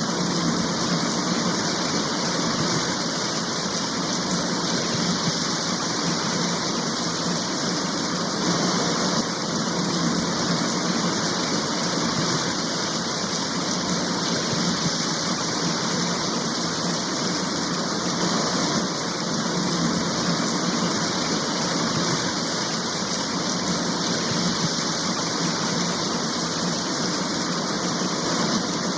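Heavy rain falling steadily: a dense, even hiss with no thunder.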